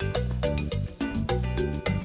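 Background music with a steady beat over a bass line and pitched instrument notes.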